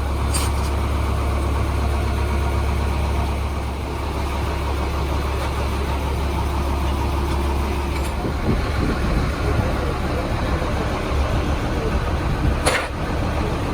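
A vehicle engine running steadily at idle, a low hum that turns rougher about eight seconds in, with one sharp click near the end.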